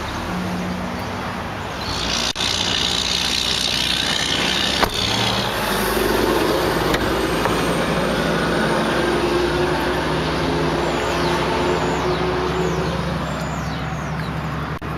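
Motor vehicle engine running with a steady hum. A hiss lasting a few seconds starts about two seconds in, with a couple of sharp knocks.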